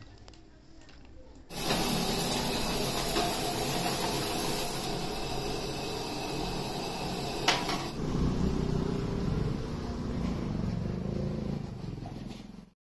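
Puris deep-frying in a wok of hot oil: a steady sizzling hiss that starts abruptly after a quiet first second and a half, with one sharp knock a little past halfway. It cuts off just before the end.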